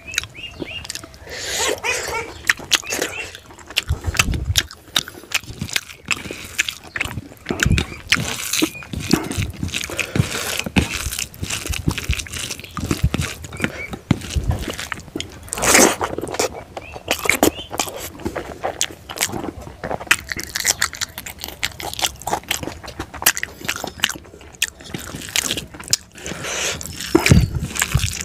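Close-up eating sounds from a person chewing rice with fried fish and pork eaten by hand: steady chewing, lip smacking and many short wet clicks.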